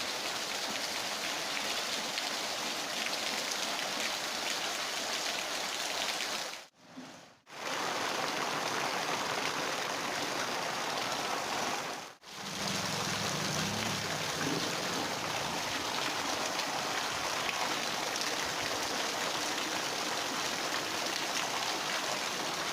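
Heavy rain pouring down in a steady, dense hiss, breaking off briefly twice.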